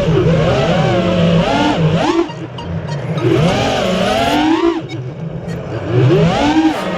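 Radio-controlled car's motor revving up and easing off again and again, its pitch rising and falling several times.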